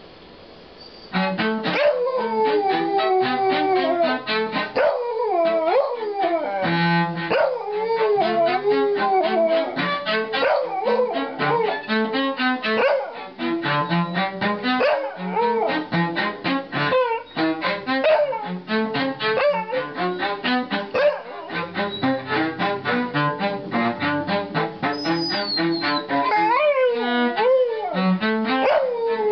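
A cello starts playing about a second in, and a dog howls along with it, its howls gliding up and down in pitch over the bowed notes.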